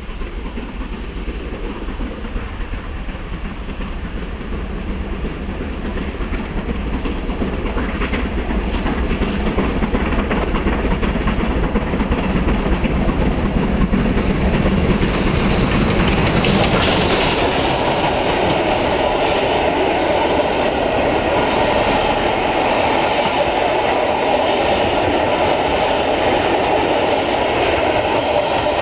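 Rebuilt Merchant Navy class three-cylinder 4-6-2 steam locomotive 35018 British India Line working hard as it approaches and passes, growing louder until it draws level about halfway through. Its coaches then rattle past over the rail joints.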